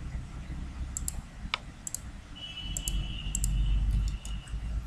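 Computer mouse clicks, single and double, scattered through the moment, with one sharper click about one and a half seconds in. Under them is a low steady background hum, and a faint thin high tone sounds through the middle.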